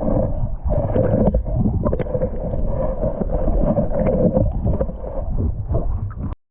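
Loud wind rumble buffeting the microphone in driving rain, with many small scattered ticks of raindrops and water on the kayak. The sound cuts off suddenly near the end.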